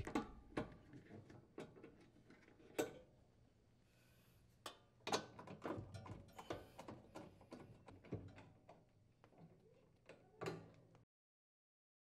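Faint, scattered clicks and light metallic knocks as screws are unthreaded from the sheet-metal housing of a refrigerator's ice auger drive motor assembly and the parts are handled.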